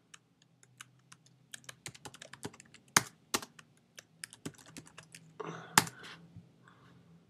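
Typing on a computer keyboard: irregular key clicks, coming in a quick run about two seconds in, with a few harder keystrokes standing out.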